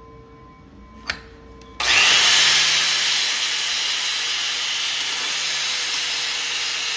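Angle grinder cutting in about two seconds in and grinding a weld bead flush on a steel clutch pedal arm: a loud, steady hiss of the disc on metal.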